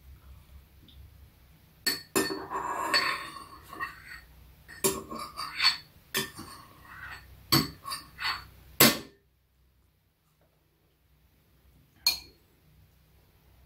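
A metal spoon clinking and stirring against bowls and a small cup during a meal: a run of sharp clinks over several seconds, the loudest near the end of the run, then a lull and one last clink near the end.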